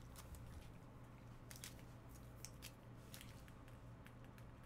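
Near silence: room tone with a faint steady low hum and a few faint scattered clicks.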